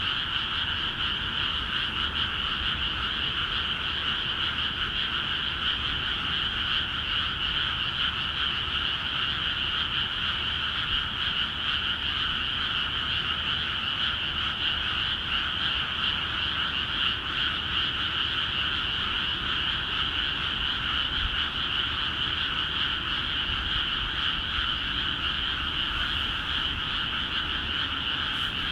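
Chorus of many frogs calling together in flooded rice paddies. It is a dense, unbroken chorus of overlapping croaks with a high, even pitch, steady throughout. This is the frogs' spring calling once water is let into the fields.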